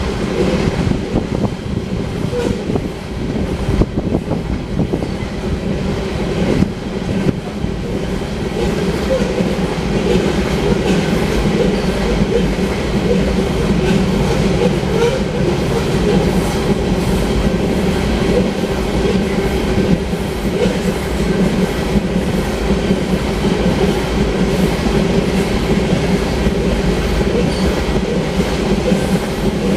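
Loaded iron-ore cars of a long freight train rolling steadily past, a continuous noise of steel wheels on the rails.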